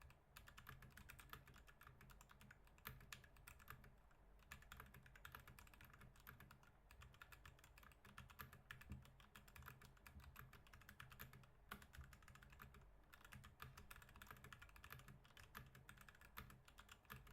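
Faint, rapid typing on a computer keyboard during a typing test, at about 81 words a minute: a dense run of key clicks with a couple of brief lulls.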